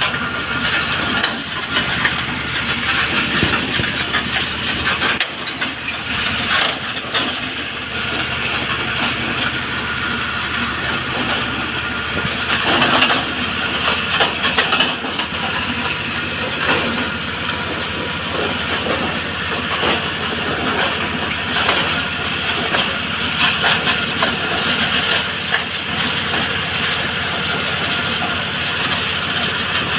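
Engine-driven well-drilling machine running steadily, with a hiss and occasional metallic clatter and knocks.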